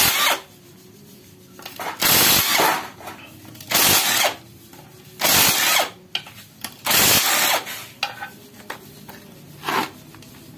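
Power tool run in about six short bursts, a second or two apart, undoing the bolts on the front of a manual gearbox during teardown.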